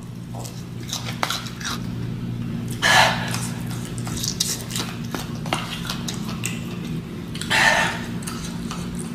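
Close-miked eating sounds of spicy fried chicken: wet chewing, finger-licking and lip smacks, with two louder hissing breaths about three seconds in and near the end, over a steady low hum.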